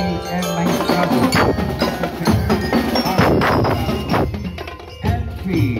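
Marching drum and lyre band playing: glockenspiel-type bell lyres struck with mallets, ringing over bass drum beats.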